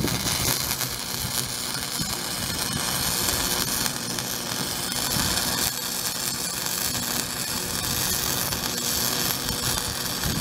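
Lincoln Pro-Core 100 flux-core wire welder arc crackling steadily while a bead is laid on a steel bumper bracket.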